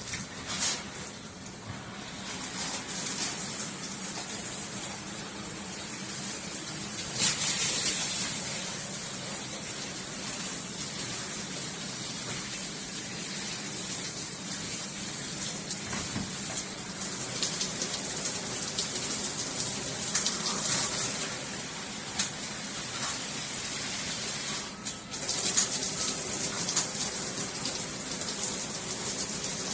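Water spraying steadily from a shower head, a continuous hissing rush that cuts out for a moment about 25 seconds in before running on.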